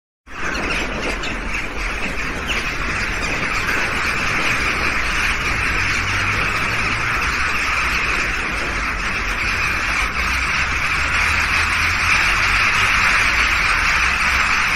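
Din of a large flock of crows calling all at once, a steady dense wash of cawing, with a low rumble underneath.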